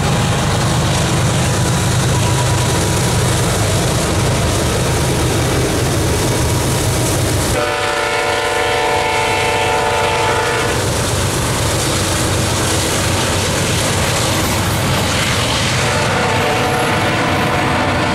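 GE diesel freight locomotives working up a grade as they pass, with a heavy low engine rumble. About eight seconds in, a locomotive horn sounds one chord for about three seconds. The rest is the train's cars rolling by with wheel clickety-clack.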